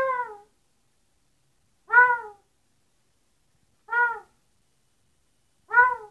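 Pet parrot mimicking a dog's bark, saying "guau" (woof) four times, about two seconds apart. Each call is short and clear and rises, then drops in pitch at the end.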